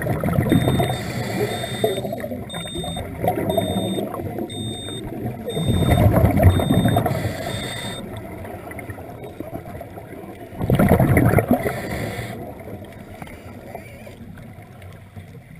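Scuba regulator exhalations heard underwater: bursts of bubbling gurgle, about three of them, near the start, around six seconds in and around eleven seconds in. A faint high beep repeats about twice a second through the first half.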